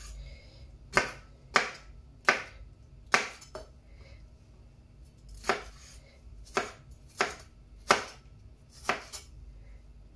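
Large kitchen knife chopping red bell pepper on a wooden chopping board: about ten sharp, irregularly spaced knocks of the blade hitting the board.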